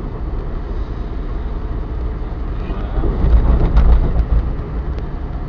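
Car driving, heard from inside the cabin: a steady low rumble of engine and tyres on the road. It grows louder for about a second, partway through, with a few short knocks.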